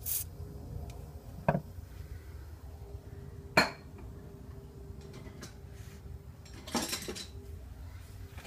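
A few sharp metal clinks and knocks from tools and metal parts being handled during boiler repair work; the loudest comes about three and a half seconds in and a quick cluster follows near the end, over a steady low hum.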